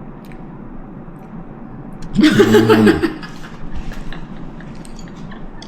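A person makes a short wordless voiced hum about two seconds in, amid quiet clicking mouth noises while eating a snack.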